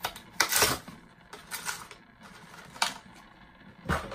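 Plastic blister package of a 1:64 die-cast truck being popped open and handled: a few separate crackling, clicking bursts of stiff plastic and card, the loudest about half a second in.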